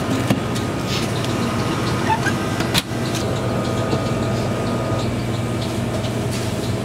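Microwave oven running with a steady electrical hum while it heats food, with a sharp knock about three seconds in.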